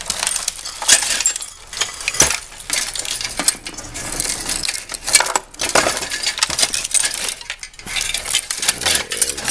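Debris from a smashed television, broken glass and bits of metal, clinking and rattling as it is rummaged through: a dense, irregular run of small clicks and scrapes.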